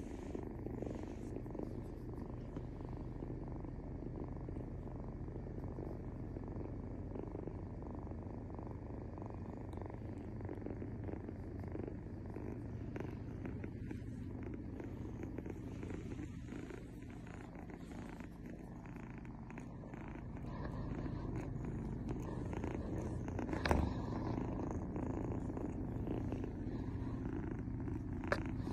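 Kitten purring steadily, a continuous low rumble with one brief tap about two-thirds of the way through.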